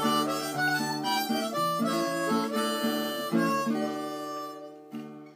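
Outro music led by a harmonica playing a melody, fading and ending near the end.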